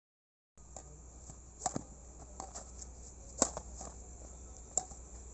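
Badminton rackets striking a shuttlecock during a rally: several short, sharp hits a second or so apart, the loudest about three and a half seconds in.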